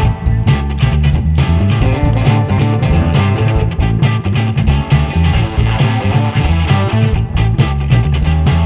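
Background music: a rock track with guitar and a steady bass line.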